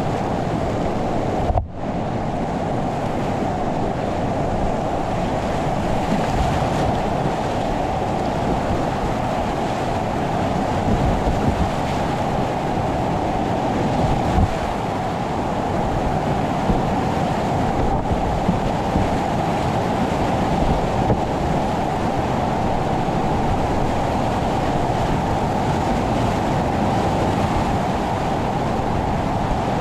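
Steady rush of class IV whitewater rapids on a mountain creek, with a brief dropout about two seconds in.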